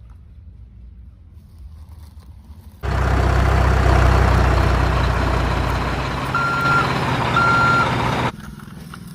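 Truck engine running steadily after a quiet first few seconds, with two short reversing beeps about a second apart near the end, then cutting off.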